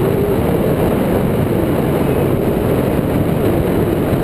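Steady rush of wind over the microphone of a camera mounted on a hang glider's wing in flight, with a faint wavering hum underneath.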